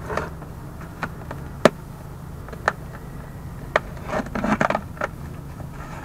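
Hands handling a white polystyrene foam shipping box and working its lid loose: a few scattered sharp clicks and scrapes, then a quick cluster of rubbing scrapes about four seconds in.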